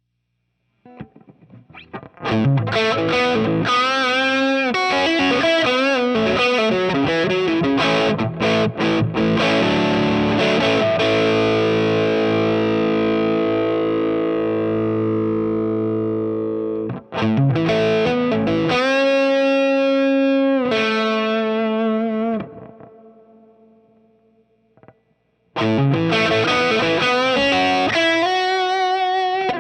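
Electric guitar, a '61 reissue Gibson SG, played through an overdrive pedal into a hand-wired Fender Deluxe Reverb Reissue tube amp and heard from a miked Marshall 4x12 cabinet: distorted chords and riffs. The playing starts about a second in, breaks off briefly about halfway, then a chord rings out and fades before the playing resumes near the end.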